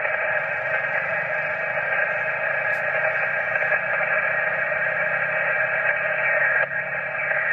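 Steady HF static from a Yaesu FT-857 transceiver's speaker, receiving on the 20-metre band in upper sideband with no clear station, while the tuning knob is turned through the band. The hiss dips briefly about a second before the end.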